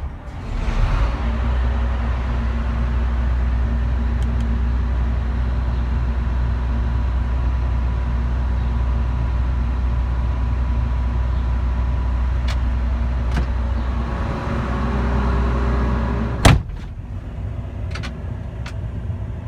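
A vehicle engine running steadily with a low hum, ended near the end by a single sharp clunk, after which it is much quieter.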